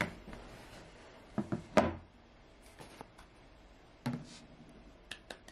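A few knocks and taps of a phone and TV remote being handled on a tabletop, the loudest about two seconds in and another about four seconds in, with faint ticks near the end.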